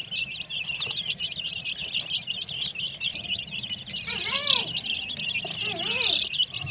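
Many baby chicks peeping together: a dense, unbroken chorus of rapid high chirps. From about four seconds in, a few lower rising-and-falling calls sound over them.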